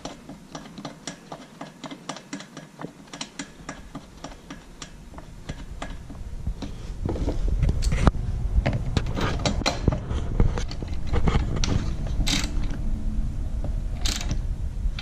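Ratchet wrench clicking in quick, even strokes, about four a second, as a spark plug is run into a RedMax EBZ7500 blower's engine, followed after about six seconds by louder knocks and handling noise of tools on the blower.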